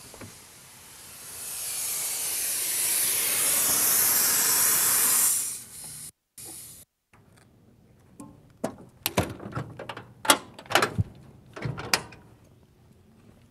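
Compressed air hissing out of the open drain valve on a Blue Bird school bus's front air tank, growing louder over a few seconds and then cutting off suddenly. A few sharp clicks and knocks follow.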